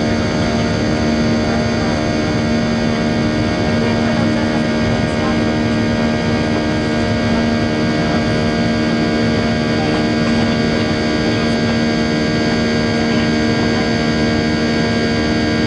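Cabin noise of a Boeing 737-800 climbing after takeoff: its CFM56-7B turbofan engines make a steady drone with several held tones over a broad rush of air, heard from inside the cabin.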